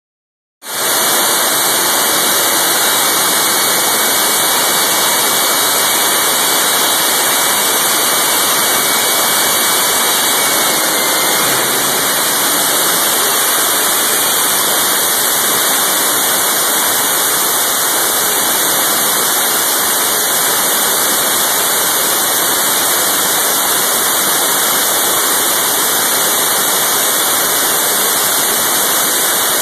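Turbine jet engine of a jet-powered hearse running steadily with the afterburner not yet lit: a loud, even rushing roar with no change in pitch.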